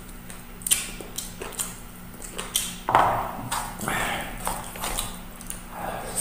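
Close-up mukbang eating sounds: a person chewing chicken feet adobo and rice with wet smacks and many sharp clicks, louder bursts about three and four seconds in.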